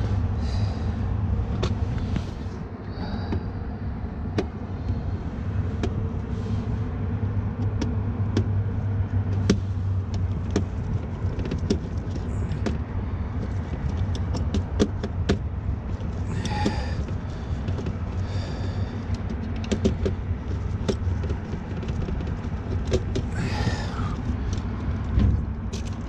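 Steady low machinery rumble, with scattered small clicks and rustles as gloved hands handle wires and terminals in a rooftop HVAC unit's electrical control panel.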